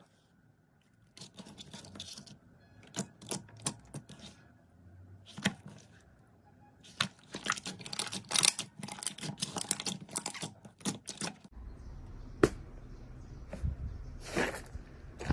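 Slime being squeezed and poked by hand, making irregular sharp clicks and crackles that come thick and fast from about seven seconds in. About eleven and a half seconds in the sound changes and a low steady rumble runs under the clicks.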